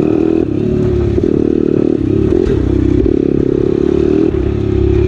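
Pit bike engine running as the bike is ridden along a rough dirt track, its pitch rising and falling with the throttle every second or so.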